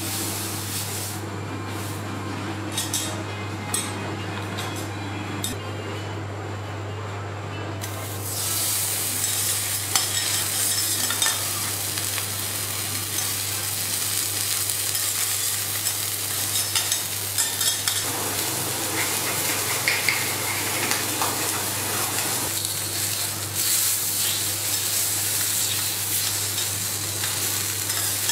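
Salmon fillet searing on a flat steel teppanyaki griddle: a steady sizzle that swells about eight seconds in, with occasional light clicks. A steady low hum runs underneath.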